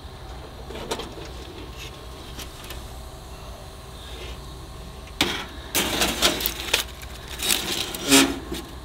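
Foil-wrapped brisket going back into a foldable stainless-steel camp oven: foil crinkling and a run of metallic clinks and knocks from the oven rack and door, starting about five seconds in. The loudest knock comes near the end.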